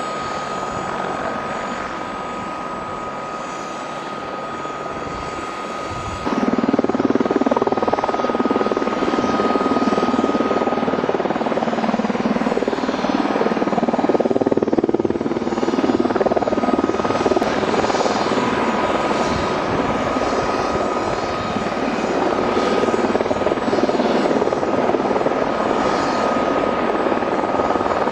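Helicopter running, its rotor and engine noise carrying a steady high whine; the sound jumps suddenly louder about six seconds in.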